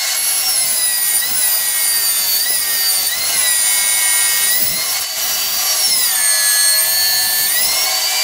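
Homemade table saw running as a board is fed across its blade to cut a slot, a steady high whine whose pitch dips several times as the blade bites into the wood. Right at the end the motor starts to wind down, its pitch falling.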